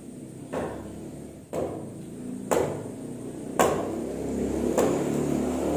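Five sharp knocks about a second apart, each ringing briefly in a bare concrete room, with a low rumble rising in the second half.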